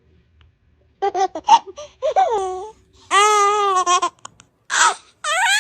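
Toddler vocalising with short high babbles, then a long high-pitched squealing laugh held for about a second, a short breathy burst, and another call that glides down in pitch near the end.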